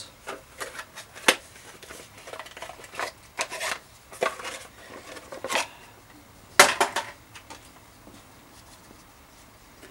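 Velo Orange cork handlebar grips being unpacked and handled: scattered light knocks, clicks and rustles, with a sharp cluster of clicks a little past halfway.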